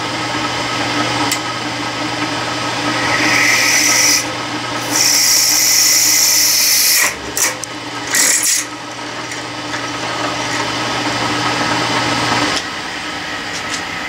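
Drill press motor running steadily while a twist drill bores into a 1/4-inch brass bar. The bit cutting the brass gives a harsh, high-pitched grinding noise in several bursts between about three and nine seconds in. A low hum drops out shortly before the end.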